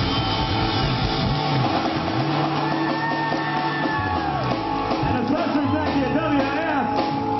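Live rock band playing: electric guitar and bass guitar, with long held notes.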